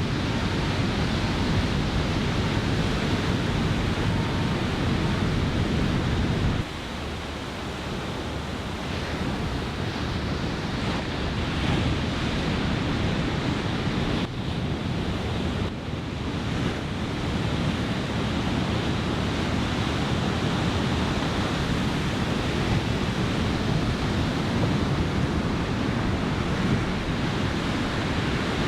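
Surf breaking on a sand beach, with onshore wind buffeting the microphone as a low rumble. The wind rumble drops away suddenly about seven seconds in and builds back over the next several seconds.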